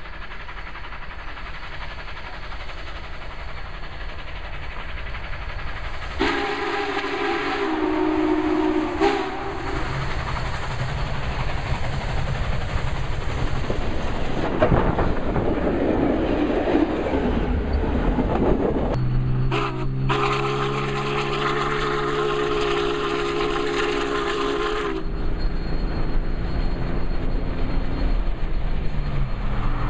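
Union Pacific 844, a 4-8-4 steam locomotive, sounds its chime steam whistle twice as it runs past at speed: a short blast about six seconds in and a longer one past the middle. Between the blasts the locomotive and its train go by close, with the rumble and clatter of wheels on the rails.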